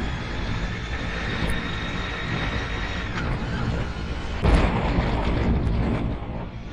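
Strong wind buffeting the microphone as a dense low rumble, with a harder gust about four and a half seconds in.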